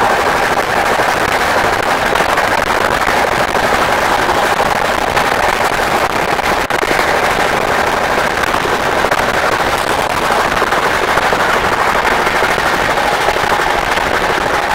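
Passenger train running on the track: a loud, steady, dense rattle and clatter, with a faint steady whine under it.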